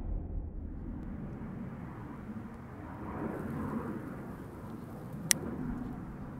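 Distant jet-engine noise of a Messerschmitt Me 262 in flight: a steady, rushing rumble that swells slightly partway through. One sharp click about five seconds in.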